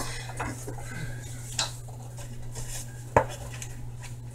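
Kitchen dishes and utensils being handled, with light clinks and knocks and one sharper knock about three seconds in, over a steady low hum.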